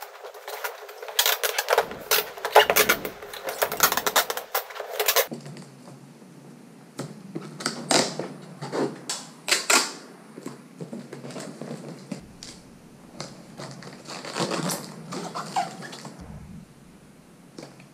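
Packing tape pulled off its roll with a rapid crackle for about the first five seconds, then scattered taps and rubs as the strips are pressed down onto cardboard mailing tubes.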